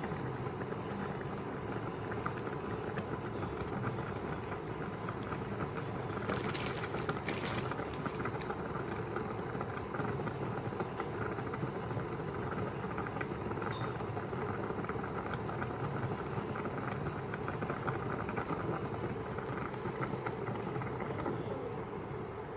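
Millet noodles boiling in a pot of water: steady bubbling with a fine crackle over a low rush. A few brief sharper sounds come about six to eight seconds in.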